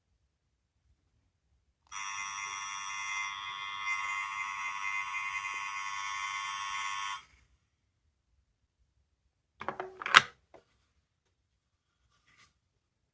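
A sound-making capsule toy plays a steady electronic buzzing tone for about five seconds, then it cuts off suddenly. A few sharp clicks or knocks come about ten seconds in.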